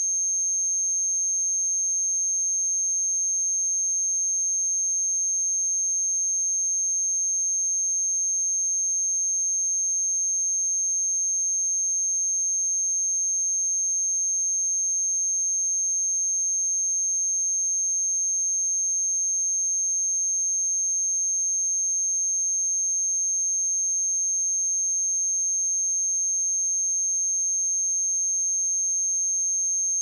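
A pure 6392 Hz sine-wave test tone: one steady high-pitched whistle held at constant pitch and level.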